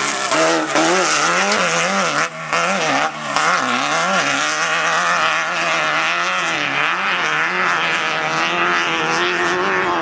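Air-cooled VW 1776 flat-four engine of a Class 12 off-road race car running hard, its pitch rising and falling continually as the throttle is worked, with two short drops in level about two and three seconds in. A constant loud rushing noise runs under the engine.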